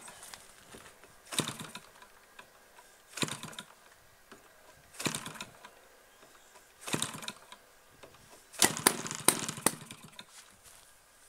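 DLA 56cc single-cylinder two-stroke RC petrol engine being hand-flipped by its propeller for a first start, turning over in five short bursts about every two seconds. The last flip near the end gives a longer run of several loud pops, but the engine does not keep running.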